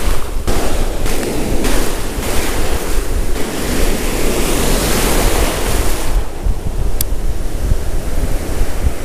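Ocean surf breaking and washing in, with strong wind buffeting the microphone. The wash swells loudest around the middle and eases off about two-thirds of the way through.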